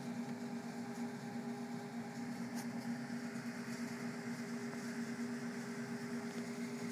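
A steady mechanical hum over a light hiss, its pitch and level unchanging.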